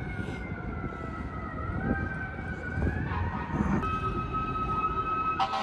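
Emergency vehicle siren wailing slowly, its pitch falling, then rising, then holding steady, over the low noise of street traffic. A short blast sounds near the end.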